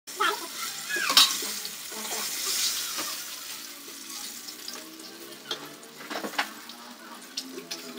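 Hot oil sizzling and crackling from freshly fried chicken drumsticks, with a few sharp taps as the drumsticks are set down on a paper-towel-lined plate, the loudest about a second in.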